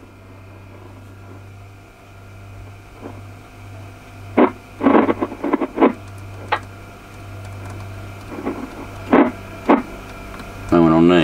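Yaesu FT-736R transceiver's receiver hissing and humming steadily while its channel is stepped, with short bursts of static breaking through several times and a brief wavering tone near the end. The noise is the heavy interference the operator complains of, about signal 8 to 9 on the meter.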